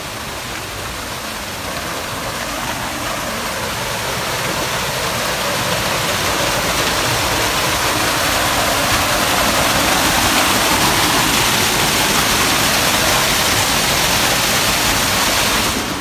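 Small waterfall splashing down a rock cleft into a shallow pool, a steady rushing noise that grows louder over the first ten seconds or so, then holds.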